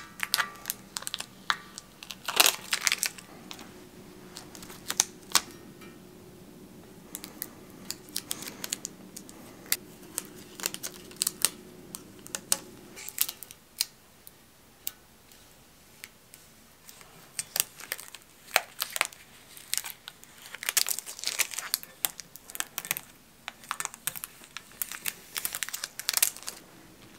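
Vinyl decals being applied to a bicycle fork and frame: the transfer tape and backing paper crinkle and peel, and fingers rub the decals down onto the metal tubes, in clusters of short rustles and clicks.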